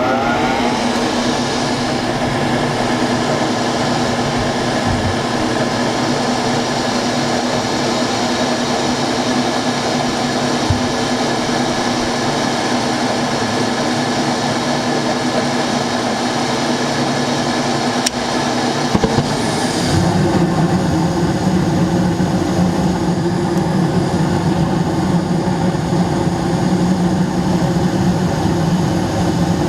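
Gas furnace running after start-up, its motor hum steady. About two-thirds of the way through, the sound changes to a deeper, stronger steady hum as another stage of the furnace comes on.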